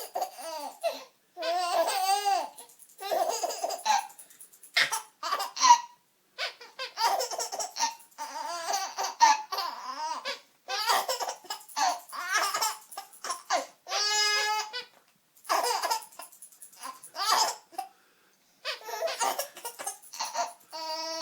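Small child laughing in repeated high-pitched fits of giggles, with short pauses for breath between them and one longer squeal about fourteen seconds in.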